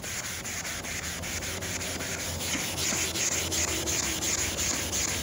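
A magic eraser sponge being scrubbed hard back and forth over a wet, mildewed boat seat in rapid, even strokes, the scrubbing growing a little louder about halfway through.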